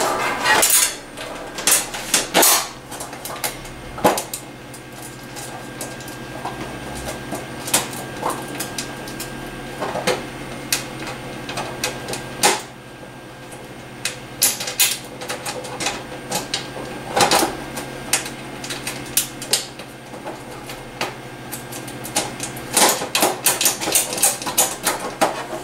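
Irregular light clicks and taps of a sheet-metal screw and nut being fitted by hand through a sheet-metal shelf and deflector panel, metal knocking on metal in scattered clusters.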